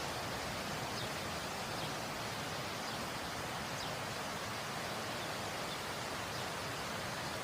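A waterfall rushing steadily, a constant even hiss of falling water.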